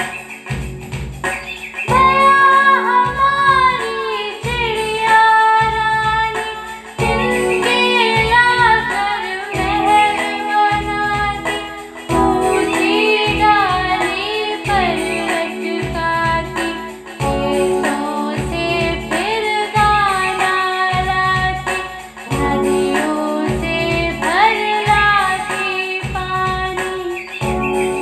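A sung Hindi children's poem: a voice singing the verses over backing music with a steady beat.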